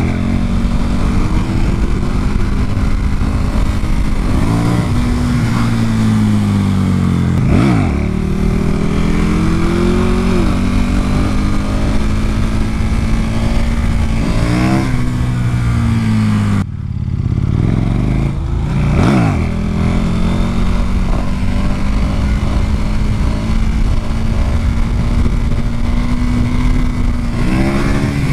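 KTM 1290 Super Duke R's V-twin engine pulling steadily, broken by several sharp throttle blips that rise and fall quickly as the rider lifts the front wheel into wheelies. Steady wind rush on the helmet camera.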